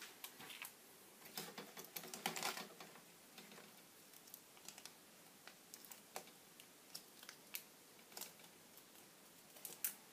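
Faint, irregular clicks and taps of hands working on a laptop, keys and plastic parts, with a denser cluster about one and a half to two and a half seconds in.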